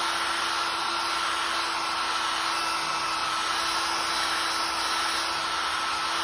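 Electric drill spinning a polycarbide abrasive stripping wheel against the steel top of a Blackstone griddle, grinding off rust and old seasoning down to bare metal. It makes a steady whine over the hiss of the abrasive on the metal.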